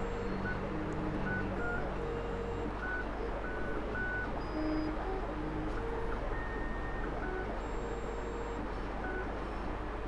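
Xtool automatic key cutting machine cutting a key blade: a steady motor whir with short whining tones that change in pitch as the carriage moves.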